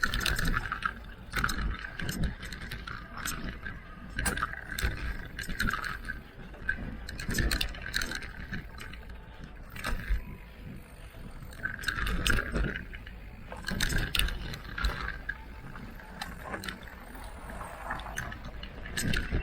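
Electric mountain bike riding a rough trail: a motor whine that comes and goes every second or two, with frequent rattles and knocks from the bike over the ground and a constant low rumble of wind on the microphone.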